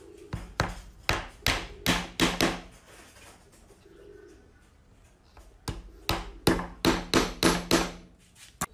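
Hammer tapping wooden dowels into glued holes in the edge of a wooden board: two runs of about seven quick sharp taps each, a few seconds apart, and one more tap near the end.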